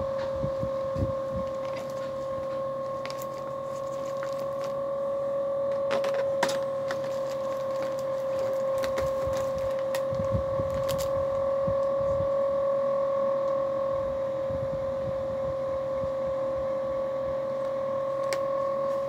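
A steady machine hum holding one mid-pitched tone with a fainter, higher tone above it, with a few light clicks and knocks now and then.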